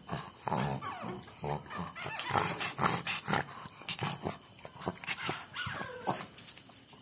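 A litter of pug puppies whimpering and yipping in many short, overlapping high calls, some of them sliding whines, with sharp clicks mixed in.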